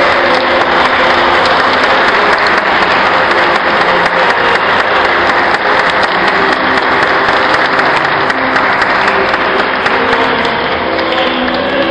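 Wedding guests applauding: a crowd clapping steadily, easing off a little near the end.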